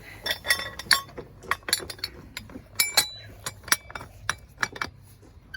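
Metal fittings clinking and tapping as an air-line attachment is fitted onto a slurry pipe: a rapid, irregular run of sharp metallic clinks, some briefly ringing, that dies away near the end.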